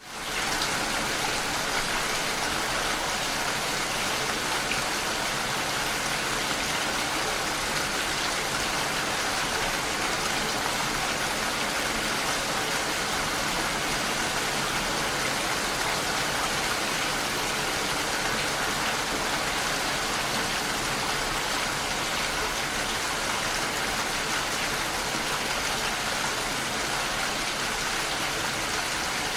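Steady heavy rain pattering on a window pane, an even hiss with no breaks. It fades in from silence at the very start, as a looped rain recording restarts.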